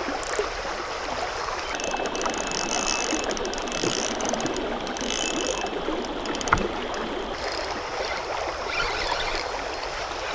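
Fishing reel clicking rapidly for about five seconds in the middle while a hooked fish is fought, over the steady rush of a creek riffle. A single knock about six and a half seconds in.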